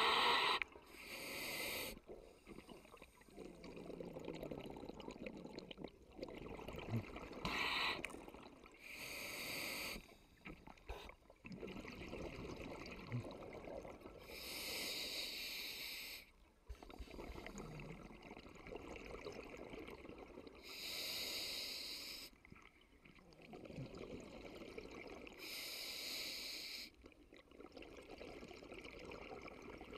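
Scuba diver breathing through a regulator underwater, heard on the camera: hissing, bubbling breaths about every five to six seconds, with a low rumble of water between them.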